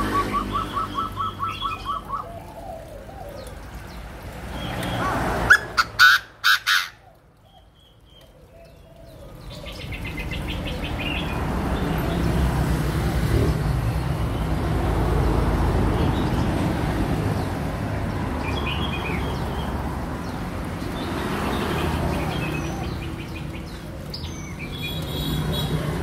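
Chinese francolin calling at the start: a fast run of evenly repeated harsh notes. Small cage birds chirp now and then over a steady low rumble, with a few loud sharp clacks about six seconds in.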